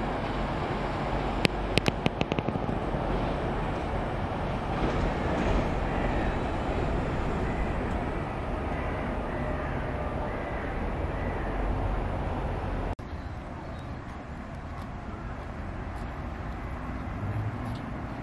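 Steady outdoor city street noise with passing traffic, broken by a quick run of sharp clicks about two seconds in. The noise drops abruptly about 13 seconds in to a slightly quieter background of the same kind.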